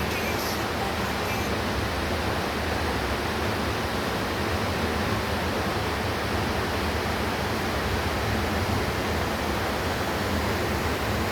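A steady rushing noise, even and unchanging, with no distinct events.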